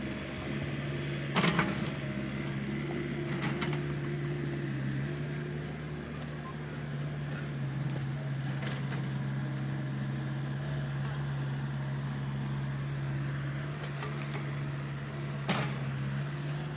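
Heavy earthmoving machine's diesel engine running steadily, with sharp knocks about a second and a half in, again around three and a half seconds, and near the end; the first knock is the loudest.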